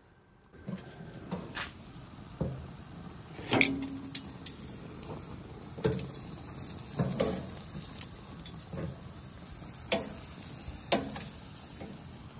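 Food frying with a steady sizzle, broken by about a dozen sharp knocks, the loudest about three and a half seconds in.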